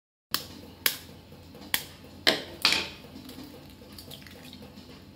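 Raw eggs being cracked on the rim of a stainless steel bowl: five sharp taps of shell on metal in the first three seconds, the last two the loudest with a short ring. Softer crackle of the shell being prised apart near the end.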